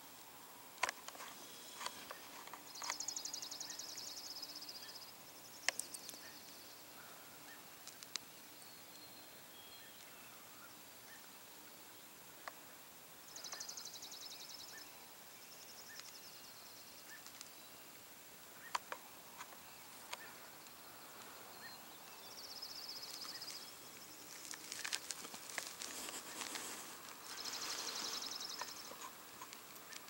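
Quiet outdoor ambience with a small songbird singing high, rapid trills of a second or two, repeated every several seconds. Scattered sharp clicks and a faint steady background run underneath.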